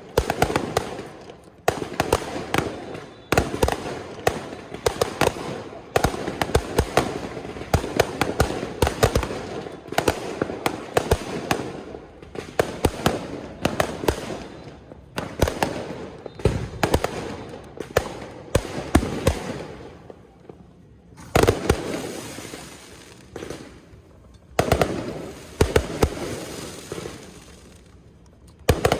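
Fireworks going off in rapid volleys of dense bangs and crackles, with short lulls between volleys near the end.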